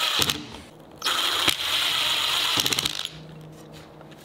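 Cordless drill driving 1-inch screws through a 1/4-inch plywood cleat into a 2x4 block. One run ends about a third of a second in, then a second run of about two seconds ends in a few quick, sharp clicks.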